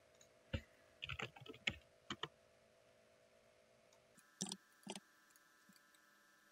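Keys tapped on a computer keyboard: a quick run of about half a dozen light clicks in the first two seconds, then a few more near the middle, over a faint steady hum.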